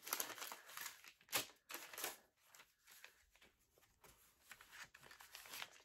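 Faint rustling of paper and packaging being handled while a gift box is unpacked: a string of short rustles, loudest in the first two seconds and quieter after.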